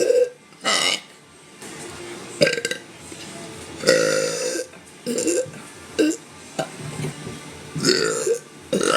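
A woman burping loudly over and over: about six separate burps, mostly short, with a longer drawn-out one about four seconds in.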